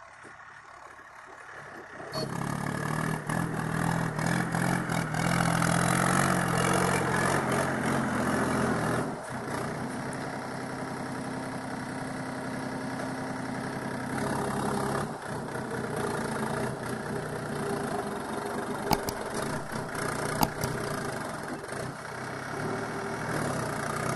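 Swaraj 744 XT tractor's three-cylinder diesel engine running as it pulls a trolley heaped with soil. The engine comes in loud about two seconds in, and its note drops and quietens about nine seconds in. Two sharp clicks near the end.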